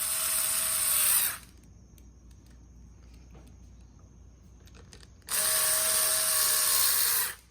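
Power drill-driver running twice to tighten the screws of a motorcycle throttle housing: a run of about a second at the start, then a steady whine of about two seconds from about five seconds in.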